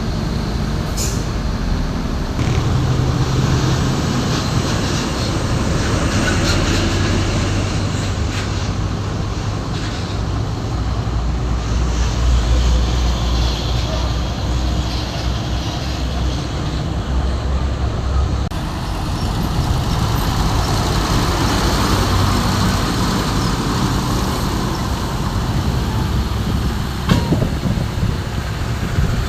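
Heavy diesel vehicles running amid passing road traffic: a continuous low engine drone under a haze of traffic noise, with a single knock near the end.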